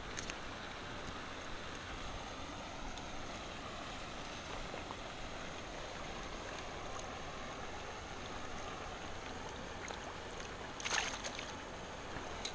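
Steady outdoor hiss of wind and water at a pond's edge, with a faint high steady whine above it. About eleven seconds in, a short sharp splash, as of a small largemouth bass dropped back into the water.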